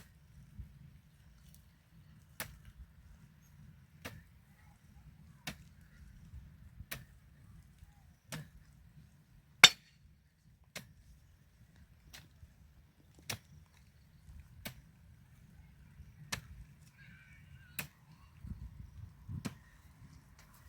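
Sharp strikes about every second and a half, a hand hoe (jembe) chopping into the soil, with one much louder strike about halfway through and a faint low rumble underneath.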